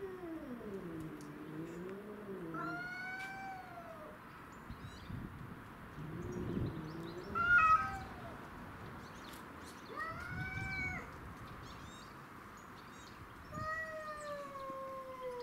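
Domestic cats caterwauling in a fight standoff: long, wavering, drawn-out yowls and arching howls. A short, loud screech comes about seven and a half seconds in.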